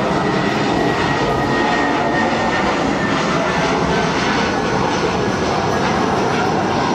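Airbus A320-214's CFM56 turbofan engines on final approach with the landing gear down: a steady, loud jet rumble with a faint thin whine over it.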